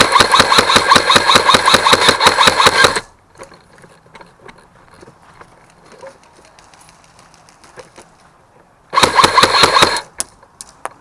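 An airsoft electric gun firing on full auto: a rapid rattle of shots over a motor whine, one burst of about three seconds at the start and a shorter burst of about a second near the end.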